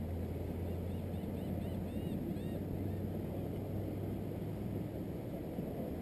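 Gull giving a quick run of about eight short, arching calls, starting about a second in and lasting under two seconds, over a steady low rumble.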